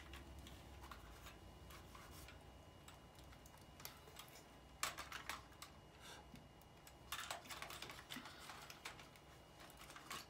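Faint clicks and taps from a large action figure and its jetpack accessory being handled and fitted together. The clicks are scattered, with two denser clusters about five seconds in and again around seven to nine seconds.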